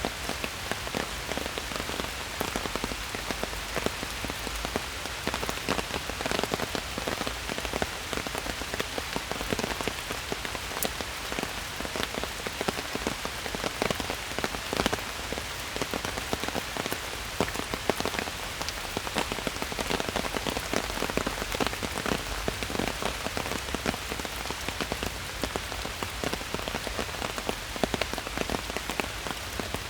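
Steady rain falling in a forest, a continuous patter with many separate drops striking close by.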